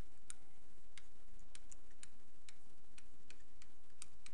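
Light, irregular clicks of a stylus tip tapping on a pen tablet as words are handwritten, a few a second, over a steady low hum.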